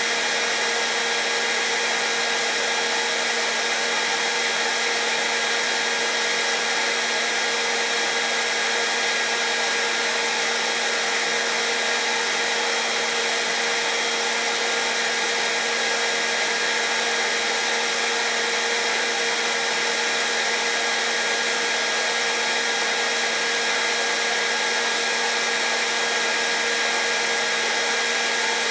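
Hairdryer running steadily on one setting: an even rush of blown air with a steady motor hum and whine that does not change.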